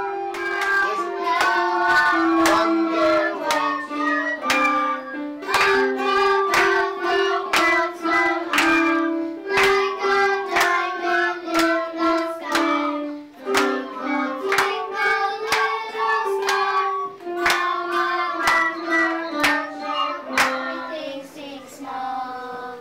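Children singing a song together to a steady beat, with sharp claps about twice a second.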